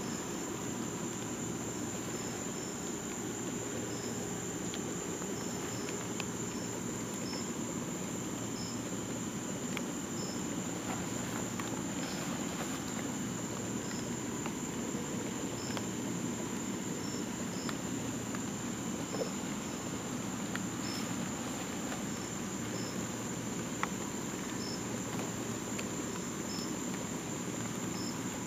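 Night insect chorus: a steady high-pitched trill with short chirps repeating about once a second, over a low steady rumble.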